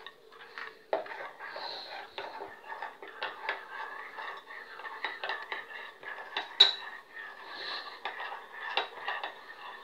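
A metal spoon stirring gelatin in a small glass bowl, clinking and scraping against the glass in quick, irregular taps, with one sharper clink about two-thirds of the way through. The powdered gelatin is being stirred into cold water to hydrate.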